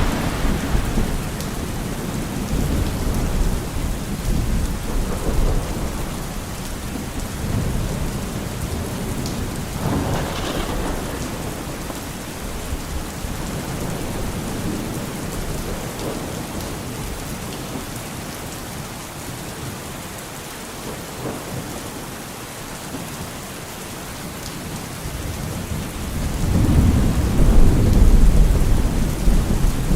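Steady rain with rolls of thunder. A rumble fades out at the start, a sharper crack comes about ten seconds in, and a long, loud rumble builds near the end.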